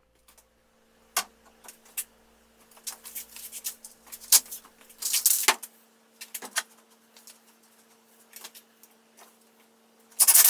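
Wooden face-frame pieces being handled on a table with scattered clicks and knocks, over a faint steady hum. Near the end, a Makita cordless impact driver starts driving a pocket screw in a loud burst.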